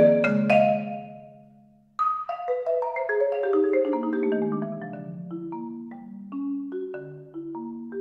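Solo Yamaha concert marimba played with four mallets: a struck chord rings and dies away over about two seconds, then a stream of quick notes begins high and winds downward, getting louder again near the end.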